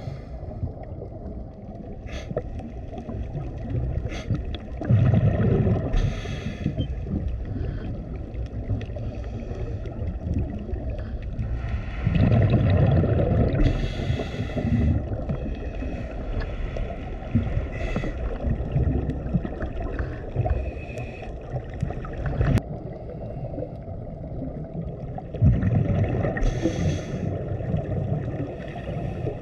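Underwater ambience picked up by the camera: a steady low rumble and water noise. It grows louder three times, about five, twelve and twenty-six seconds in, and a few sharp clicks come through.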